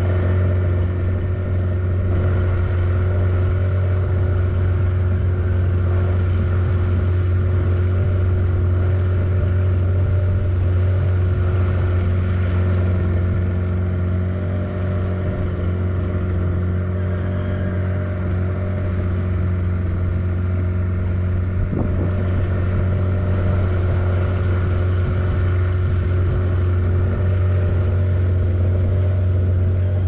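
A car's engine and road noise as it drives, a steady low drone with little change in pitch.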